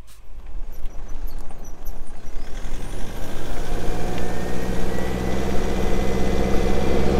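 Vehicle pulling away and gathering speed on the road: engine and tyre noise build over the first few seconds, then settle into a steady hum, with a faint rising whine about halfway through.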